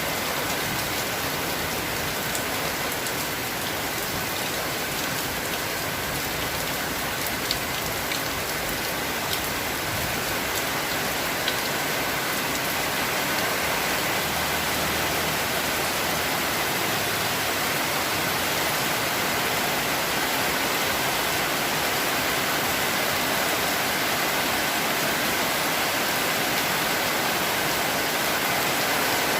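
Steady rain falling, a dense even hiss of drops on surfaces, with a few sharp drop ticks standing out in the first half.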